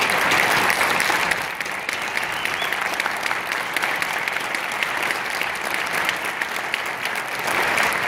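Audience applauding steadily, a little louder near the end.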